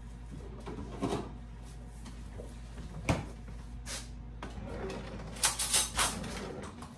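A kitchen drawer pulled open and its contents rattling, a cluster of clicks about five and a half seconds in, after a few scattered knocks and footsteps. A steady low hum runs under it and stops near the end.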